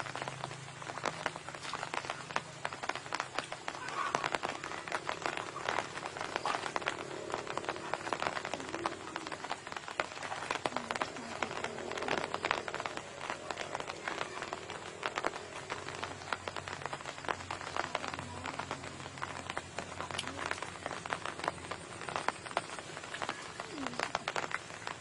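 Hands and legs splashing and squelching through shallow muddy water, with a steady dense crackle of small clicks and drips.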